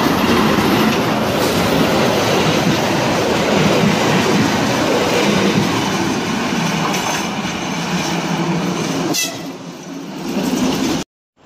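Historic class M 262.0 (830) diesel railcar with its trailer car passing close by, the diesel engine running and the wheels clattering over the rails, loud and steady. About nine seconds in a brief high squeal is heard, and the sound cuts off suddenly near the end.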